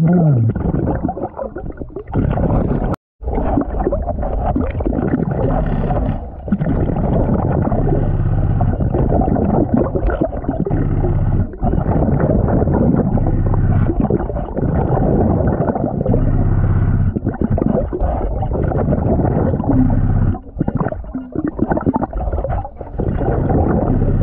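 Muffled underwater sound of a diver breathing through a Blu3 Nemo surface-supplied regulator: a steady low gurgling of air and exhaled bubbles. It cuts out briefly about three seconds in.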